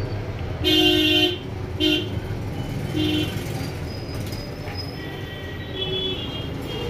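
Vehicle horns tooting several times, short steady blasts of different pitches, the longest about half a second in. Underneath is a steady low rumble of street noise.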